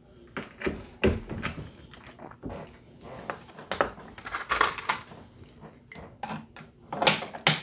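Brass 350 Legend cartridge cases and bullets clinking and rattling as they are picked up and handled at a reloading press, with scattered sharp metal clicks and taps. The loudest clinks come about a second in and again near the end.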